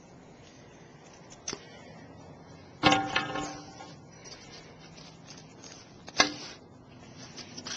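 Hard knocks on a tabletop while cutting a stick with a Kershaw folding knife: a loud knock that rings on briefly about three seconds in as the stick is put down, then a sharp knock about six seconds in as the knife blade is brought down onto the stick.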